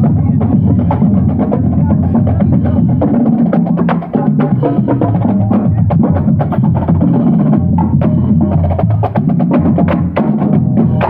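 Marching band playing while passing: sousaphones sounding low notes under a steady beat of snare and bass drums.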